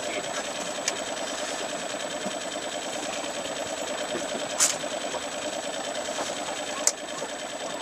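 Boat engine idling with a steady, fast-fluttering buzz. Two sharp clicks cut through it, about halfway through and near the end.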